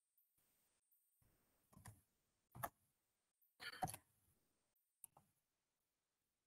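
A few faint, scattered clicks from a computer keyboard and mouse, in small groups, while a command is copied from a text editor and pasted into a terminal.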